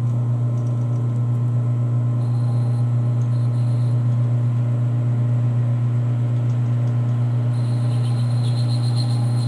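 Metal lathe running with its chuck spinning, a steady loud hum, while a facing tool is brought in on the end of the workpiece. A faint high whine comes in about two seconds in and again near the end.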